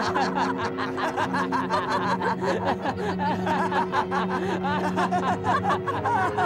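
A crowd laughing and jeering, many voices at once, with scattered hand claps, over background music with long held notes.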